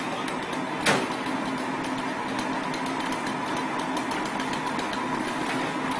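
A steady engine running with a constant hum, with one sharp crack about a second in.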